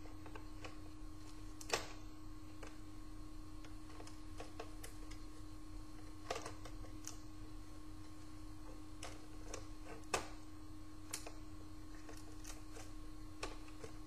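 Scattered light clicks and knocks as a laptop motherboard is handled and seated into the Acer laptop's plastic bottom case, the sharpest about 2 s and 10 s in, over a steady electrical hum.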